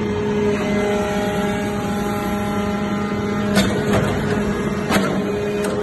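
Hydraulic metal-chip briquetting press running with a steady hum from its hydraulic power unit. A higher steady whine joins from about half a second in until about three and a half seconds, and a few sharp metallic clicks follow near the end.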